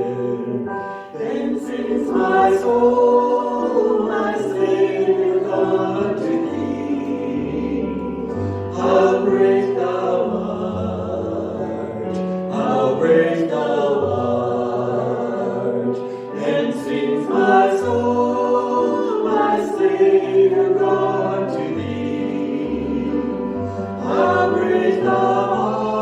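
A worship song sung by a small group of voices over an instrumental accompaniment, with phrases that swell and hold long notes.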